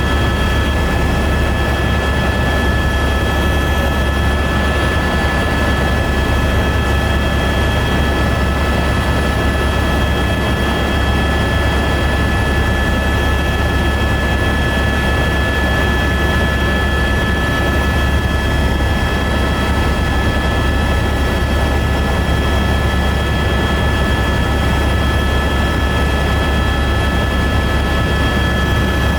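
Helicopter in flight: a steady, loud drone of engine and rotor with a constant high whine over it.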